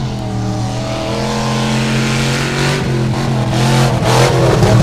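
Off-road race vehicle's engine running at steady high revs, growing louder toward the end.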